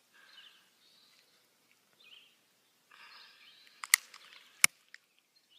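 A few sharp clicks about four seconds in, one more a moment later and a weaker one after that, over faint bird chirps.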